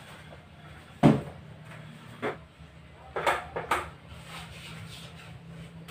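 A few sharp knocks and clatters, the loudest about a second in, then a smaller one and a quick run of clatters a second or so later, over a steady low hum.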